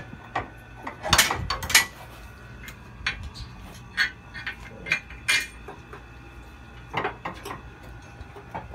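Metal clinks and clanks as an aftermarket traction bar (front cross member) is lined up against the car's underside and its bolts are started: a cluster of loud clanks about a second in, then single knocks every second or so.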